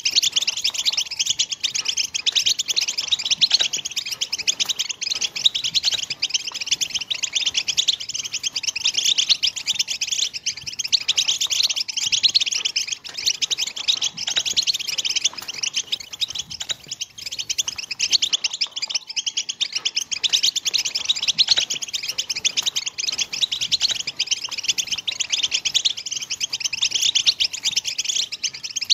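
European goldfinch song: a fast, unbroken twittering of chirps and trills, the excited chattering song that goldfinch keepers play to stir their birds into singing and breeding.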